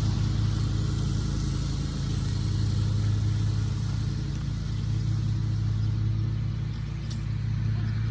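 An engine running steadily at an even speed, a low constant drone, with a few faint light ticks over it.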